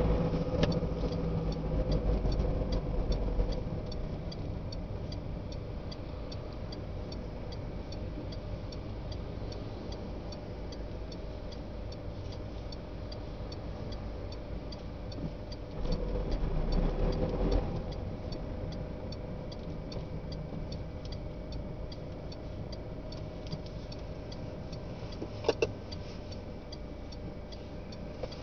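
Inside a car cab on the move: engine and road rumble, swelling at the start and again about 16 seconds in, with an even ticking of a few ticks a second running underneath. Two sharp clicks come close together near the end.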